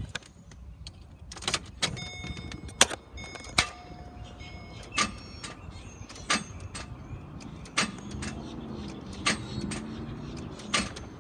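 A 2011 Chevy Caprice PPV, its 6.0-litre V8 hydro-locked and seized, gives a single sharp tick each time the key is turned and does not crank: the starter is engaging against an engine that will not turn over. The tick comes about seven or eight times, every second or so, with a few brief steady electronic tones a couple of seconds in.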